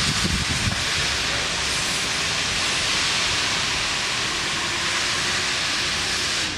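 Steam locomotive 556.036, a ČSD class 556.0 2-10-0, venting steam in a loud, steady hiss that cuts off abruptly at the end.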